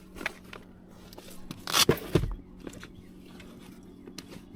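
Handling noises: scattered clicks and taps, with one brief scrape or rustle about two seconds in, over a steady low hum.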